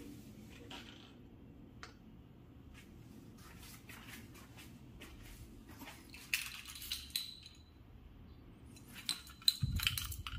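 Small metal objects clinking and clicking now and then, with short ringing clinks in two clusters in the second half and one dull thump near the end.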